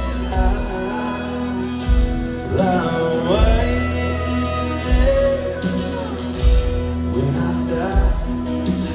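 Live country band playing a gospel song: guitars, bass and a kick-drum beat, with a gliding lead melody line over it.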